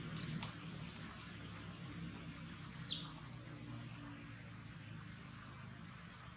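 A few short, high bird chirps, one falling in pitch about three seconds in and the loudest about four seconds in, over a faint steady low hum.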